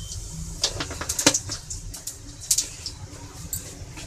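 Cumin seeds spluttering in hot oil in a kadai as they temper, with scattered crackling pops at irregular moments over a faint low hum.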